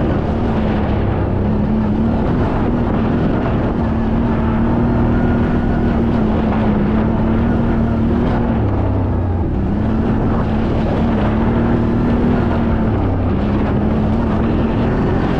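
CFMoto CF 1000 side-by-side's engine running while driving a dirt trail, its pitch stepping up and down several times as the throttle changes, over a steady rushing noise.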